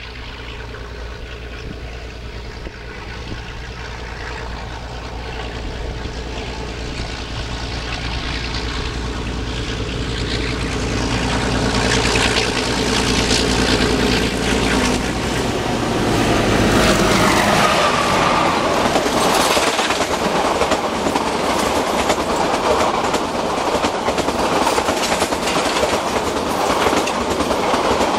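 YDM-4 metre-gauge diesel locomotive with an ALCO engine approaching under power, its engine sound growing steadily louder. About 17 seconds in it passes, and the clatter of the passenger coaches' wheels on the track follows.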